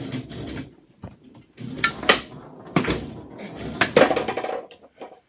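Foosball game in play: hard plastic clacks as the rod-mounted players strike the ball and the ball slams into the table's walls, with the rods knocking in their bearings. The sharp knocks come in quick clusters about two, three and four seconds in.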